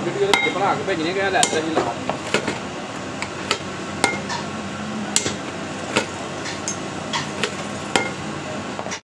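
Hand hammer striking a steel punch held against a truck clutch plate: sharp metallic blows about once a second, some ringing briefly.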